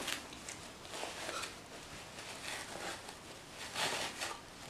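Soft rustling of woven cloth wrapping being unfolded and handled inside a cardboard box, with a couple of louder rustles near the end.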